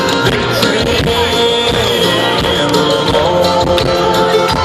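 Live country band playing an instrumental passage at full volume, with acoustic guitar, upright bass and drums.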